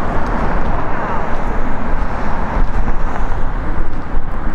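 Union Pacific Big Boy No. 4014, a 4-8-8-4 articulated steam locomotive, climbing a grade under heavy effort: its exhaust runs as a loud, steady rush with no break.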